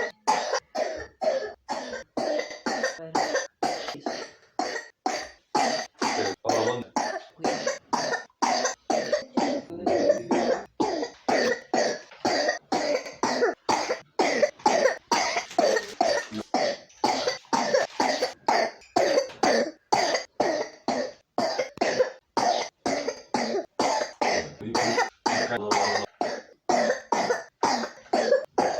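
A three-year-old child with pneumonia coughing over and over: short, sharp coughs coming almost two a second, with only brief gaps between them.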